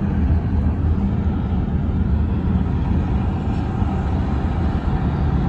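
Steady road noise heard from inside a car driving on a freeway: a low, even rumble of the moving car.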